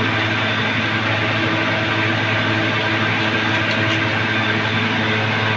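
A loud, steady droning hum with a rushing hiss, like a running machine or appliance, unchanging throughout.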